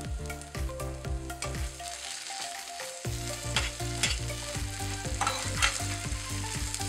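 A metal spatula stirs and scrapes thick moong dal with potatoes and peas around a stainless steel pan, over a low sizzle of hot oil and ghee. Several sharper scrapes come in the second half.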